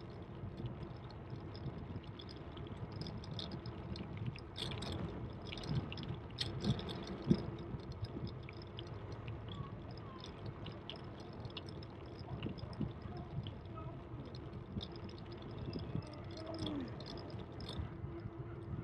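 Riding noise from a bicycle on a paved path: steady rolling noise and a hum from the tyres, with scattered clicks and rattles. A few louder knocks come about five to seven seconds in.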